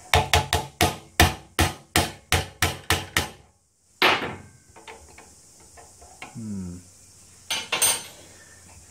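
Hammer driving a tight-fitting wheel axle through its hub and spacer on a golf trolley leg: about a dozen quick, sharp strikes at roughly three a second, then one more hard strike about four seconds in and a couple of knocks near the end.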